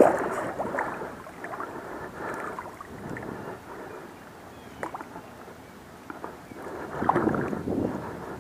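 Pond water splashing and sloshing close to the microphone, loudest at the start and again about seven seconds in, with small scattered clicks between.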